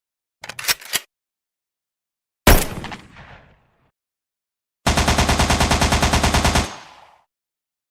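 Gun sound effects separated by dead silence: a few sharp clicks, then a single gunshot about two and a half seconds in, then a burst of automatic fire at about eleven rounds a second that lasts nearly two seconds.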